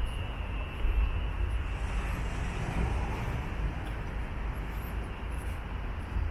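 Steady vehicle rumble with a deep low end, without clear tones or distinct events.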